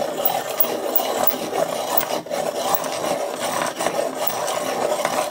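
Derwent pencil sharpener grinding the point of a blunt wood-cased coloured pencil: a continuous rasping grind with a couple of brief breaks.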